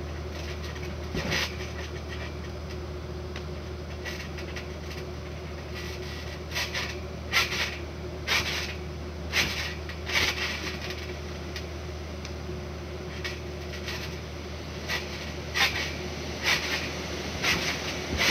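Trampoline mat and springs taking landings as a gymnast cartwheels and flips: short sharp thumps, one about a second in, a run of about five in the middle and another run near the end, over a steady low rumble.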